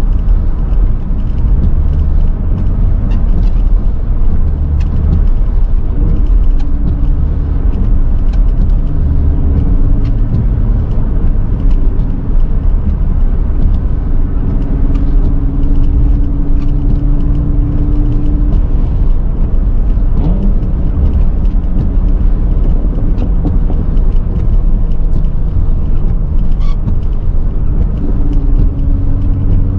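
Steady low rumble of a car driving, heard from inside the cabin, with the windshield wipers sweeping intermittently across the nearly dry glass.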